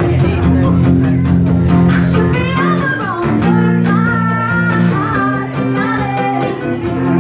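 A woman singing a song live over guitar chords, her voice holding long notes with vibrato that come through strongest from about two seconds in.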